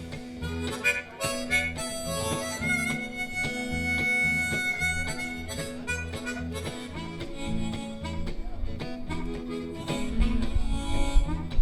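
Live blues band in an instrumental break: a harmonica solo over guitar and a steady bass pulse. About three seconds in, the harmonica holds one high note for a couple of seconds, and a heavier low beat comes in near the end.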